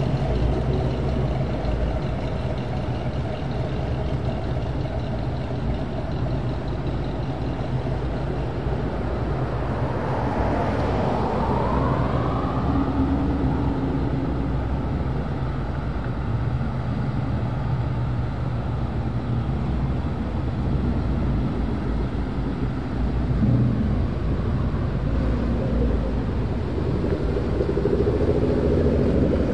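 A stream of Ford Mustangs cruising past, engines rumbling steadily. About ten seconds in, one engine revs up with a rising whine, and passing engines grow louder again near the end.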